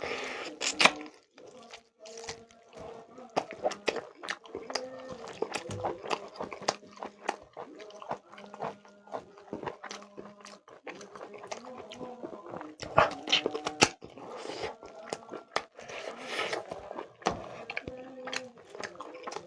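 Close-up eating sounds: chewing and biting into chicken leg curry with rice, a run of sharp wet clicks and smacks. Faint background music with steady held notes plays underneath.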